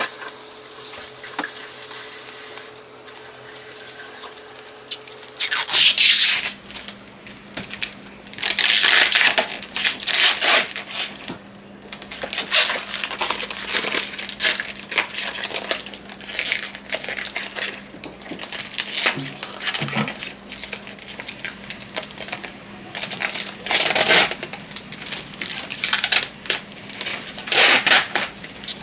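Packaging being crinkled and torn open by hand, in repeated bursts of rustling separated by short pauses.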